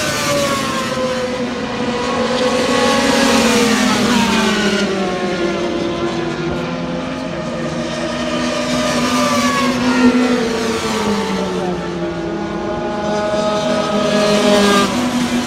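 Four-stroke racing motorcycles passing at speed one after another, the engine note rising and then falling in pitch as each goes by, about three passes.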